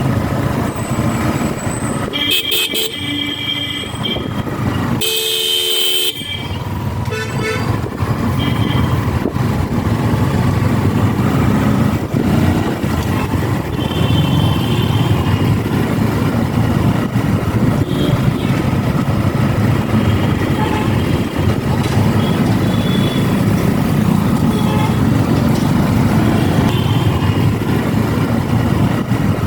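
Vehicle horns honk twice in street traffic, then steady traffic and engine noise.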